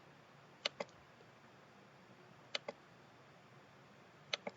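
Computer mouse clicks: three quick double-clicks about two seconds apart, over faint room hiss.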